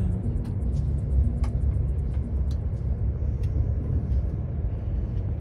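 Train running, heard from inside the carriage: a steady low rumble with light clicks and ticks, more of them in the first second.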